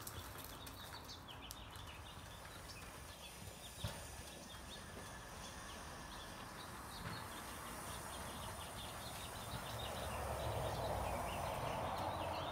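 Horse's hoofbeats on soft sand arena footing as it is ridden around, faint at first and louder near the end as it comes closer, with small high ticks and chirps over them.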